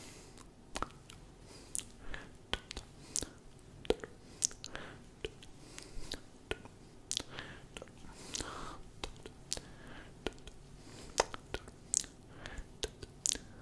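Close-up ASMR mouth sounds of inaudible whispering: irregular wet lip and tongue clicks with a soft breathy hiss, without voiced words.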